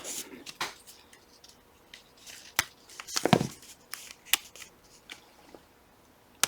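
Small tool clicking, tapping and scraping against the plastic and metal parts of a Shimano 105 road-bike shifter being worked apart by hand: a scatter of sharp light ticks and short scratches, most of them around the middle.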